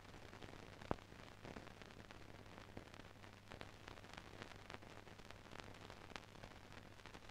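Near silence: a faint hiss and steady low hum from the soundtrack's noise floor, with scattered faint crackles and one sharper click about a second in.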